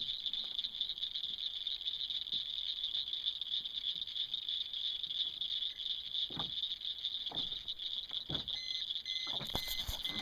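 Steady high-pitched chorus of evening insects. A few dull knocks come in the second half. Near the end a Garmin fish finder starts a quick run of short electronic beeps, about three a second.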